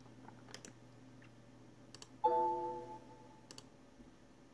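Computer mouse clicks, including a quick double-click about half a second in. About two seconds in comes the Windows system chime for a User Account Control prompt, a chord of several ringing tones that starts suddenly and fades out over about a second.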